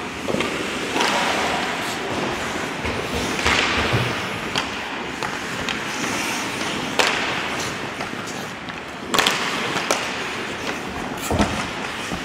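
Ice hockey play: skate blades scraping and carving the ice, with sharp clacks of sticks on the puck and the puck against the boards. The knocks come every couple of seconds, the sharpest about seven and nine seconds in.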